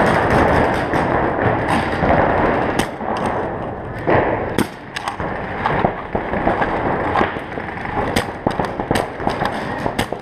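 Pump-action paintball markers firing: sharp pops at irregular intervals, single shots and quick runs of two or three, from several guns around the field.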